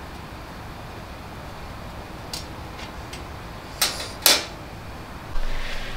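Two sharp clacks of tableware about half a second apart, each ringing briefly, over a steady low background hiss.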